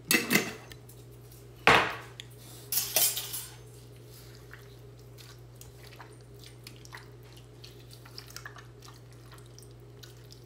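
A few loud clattering knocks of kitchen things against a stainless steel bowl and the counter in the first three seconds, then faint wet squelching and small clicks as bare hands crush canned whole San Marzano tomatoes in the bowl.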